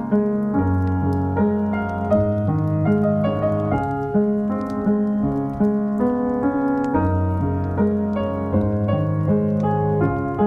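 Background piano music, a steady flow of notes with a low bass line.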